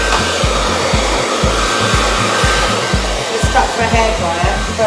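Handheld hair dryer blowing steadily while pressed against a cotton T-shirt to smooth it. A regular low beat runs underneath.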